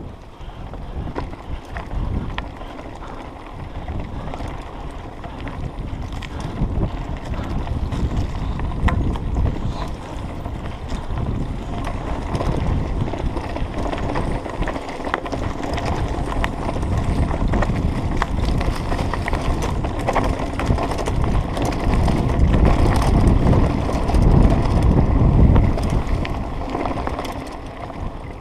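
Mountain bike descending a rough dirt trail: tyres rumbling over the ground and wind buffeting the camera's microphone, with frequent small clicks and knocks from bumps. It gets louder and rougher about three-quarters of the way through.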